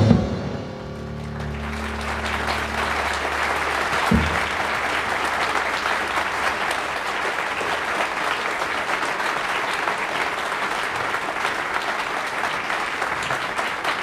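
Concert audience applauding at the end of a jazz trio number. The trio's last low notes ring out and fade under the first few seconds of clapping, with one short low thump about four seconds in. After that the applause runs on steadily.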